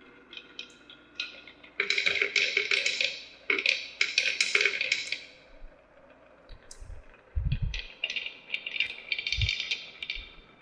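Marbles clattering and rattling down a plastic marble run in quick runs of clicks, with a few dull low thumps in the second half.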